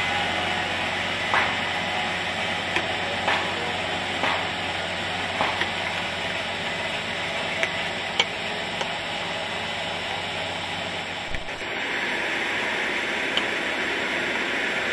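Small Farmall tractor engine running with a low hum as the tractor drives slowly across gravel, under a steady hiss with a few sharp clicks. A thump comes about eleven seconds in, after which the engine hum drops away.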